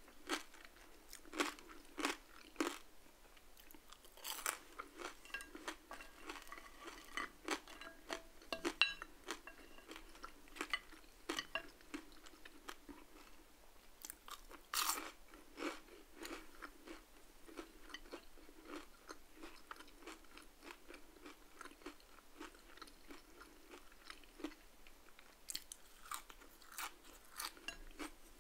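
Close-miked biting and chewing of crispy crinkle-cut fries: a run of sharp, irregular crunches, the loudest about four and fifteen seconds in.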